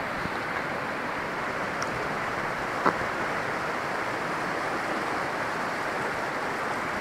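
Steady rush of a small mountain stream, the Opava, flowing past, with one brief click about three seconds in.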